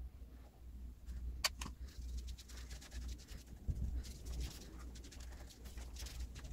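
Gloved hand spreading liquid epoxy resin over a wooden cutting board: faint wet rubbing and smearing, with two sharp clicks about one and a half seconds in and a low steady hum underneath.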